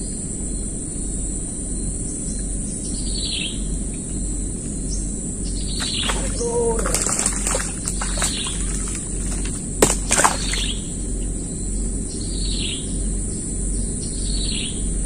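A bird repeating a short downward-sliding whistle every second or two, over a steady high-pitched drone. A few sharp clicks sound near the middle.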